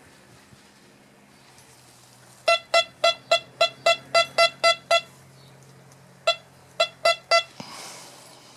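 C.Scope CS1MX motion metal detector giving short, single-pitched beeps as a small silver hammered coin is swept across its search coil: the detector signals the silver as a target. About ten quick beeps in a row, a pause, then four more.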